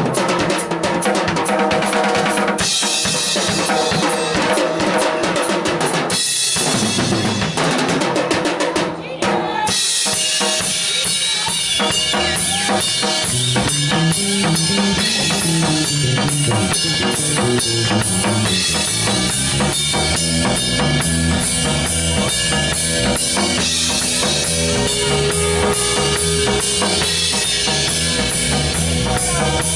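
Pearl drum kit played on its own for about the first nine seconds, with crashing cymbals and fills. Then bass guitar and electric guitar come in and the full rock band plays on over a steady beat.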